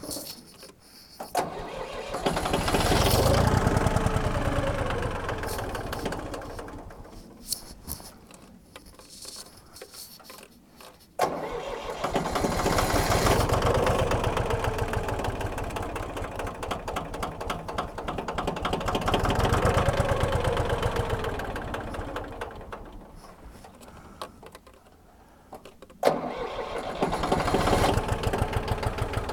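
Tractor engine being started again and again. Twice it starts suddenly, swells and then fades away over several seconds. The third time it catches near the end and keeps running with an even pulsing beat. The sign of a hard-starting tractor.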